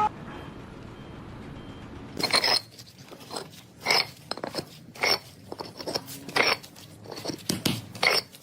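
A steady low hum, then, from about two seconds in, a run of sharp crunching knocks at uneven intervals, about a dozen of them.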